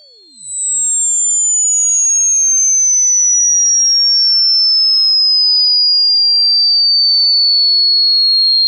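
A loud, pure electronic tone sliding slowly and steadily down in pitch, from very high to merely high, with no break.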